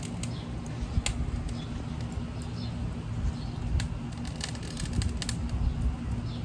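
Wind buffeting the phone's microphone as a low, uneven rumble, with a few sharp clicks and pops scattered through, most of them about four to five seconds in.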